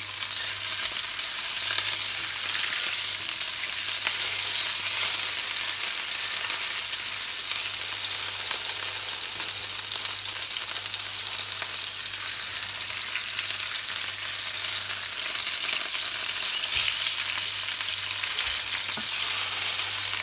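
Pork joint sizzling as it sears in hot oil in a frying pan: a steady high hiss, with a faint steady low hum underneath.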